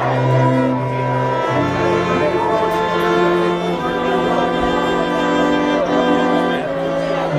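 String quartet of two violins, viola and cello playing a slow piece in long bowed notes, the harmony changing every second or two over a sustained cello line.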